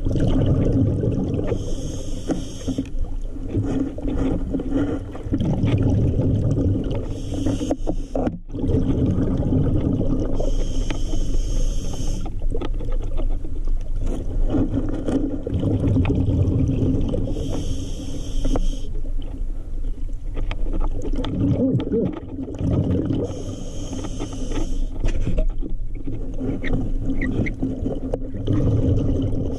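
Scuba diver breathing through a regulator underwater: a hissing inhale about every five or six seconds, with the rumble of exhaled bubbles between, muffled by the camera's underwater housing.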